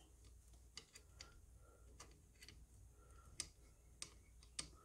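Faint, scattered light clicks of small metal trigger parts and springs of a Daisy Avanti 753 air rifle being handled by fingers, the louder ones about three and a half and four and a half seconds in, over near silence.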